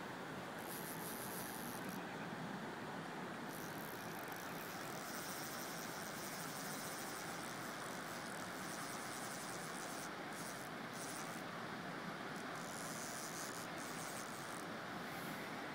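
River rapids rushing: a steady, even water noise with no change in level.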